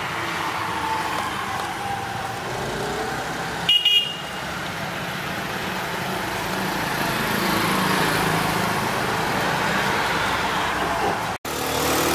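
Steady road-traffic noise, with a brief high horn toot about four seconds in.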